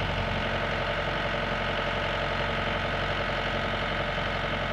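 Komatsu PC120-5 excavator's diesel engine running steadily, an even drone with no rise or fall in speed.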